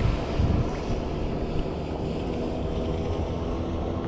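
Wind buffeting the microphone, heaviest in the first second, over a steady low motor drone.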